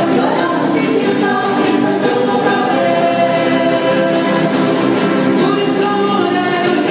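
Music: a song with several voices singing together, playing steadily throughout.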